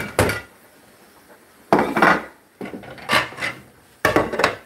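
Metal baking pan knocked and scraped over a platter as baked biscuits are turned out of it: a few separate knocks and rasping scrapes, the strongest about two seconds in.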